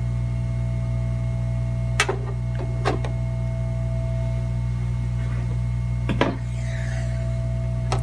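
Steady electrical hum from the soldering bench equipment, with sharp clicks and knocks about two, three and six seconds in as a donor logic board and tools are handled.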